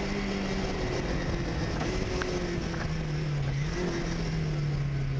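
Rally car engine heard from inside the cabin, running hard on a special stage over tyre and road noise. Its note drops in a couple of steps with a short rise about four seconds in.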